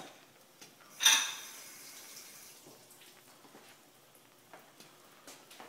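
Egg omelette frying quietly in a nonstick pan, a faint sizzle with small scattered crackles. About a second in, a sharp metallic clink with a short high ring.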